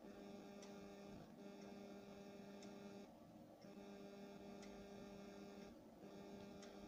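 Near silence: a faint steady electrical hum that drops out briefly a few times, with a faint tick about every two seconds.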